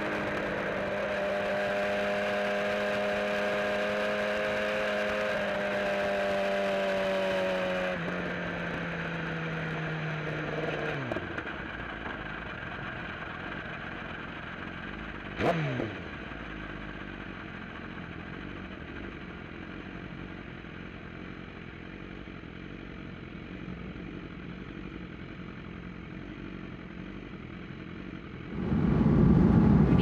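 BMW S1000RR inline-four engine heard from on board, running at steady moderate revs and easing off over the first ten seconds or so, then quieter. About halfway through, a short sound drops sharply in pitch. Near the end it switches suddenly to a grid of race motorcycles revving together, much louder.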